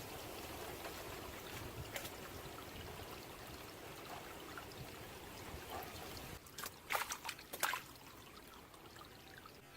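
Water running or trickling steadily, then a quick cluster of sharp clicks or knocks about seven seconds in.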